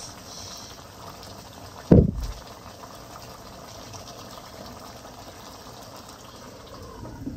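Thick egusi soup simmering in a pot, a steady bubbling, with one loud knock about two seconds in.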